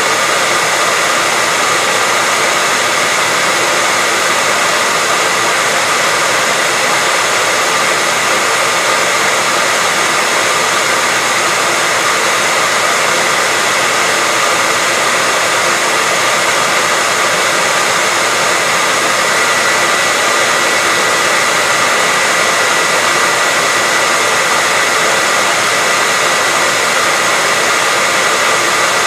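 Electric hairdryer running steadily: a constant airflow rush with a faint steady whine near the top of its hum.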